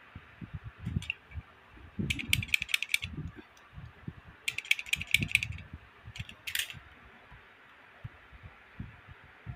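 Beyblade parts being handled and taken apart: two quick runs of small sharp plastic-and-metal clicks, and a single scrape-like click near the end, over dull handling bumps.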